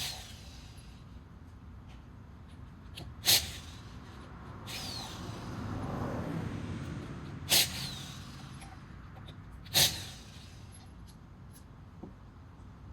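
Short bursts of an impact wrench on the truck's lug nuts, each followed by a brief falling whine as the tool spins down. Three bursts, a few seconds apart.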